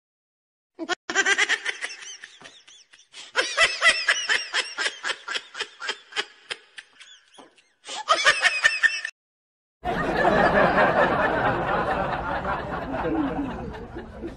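Laughter sound effects dubbed over the scene: a long run of rapid chuckles of about four or five a second, a shorter burst of them about eight seconds in, then a denser, continuous stretch of laughter from about ten seconds in.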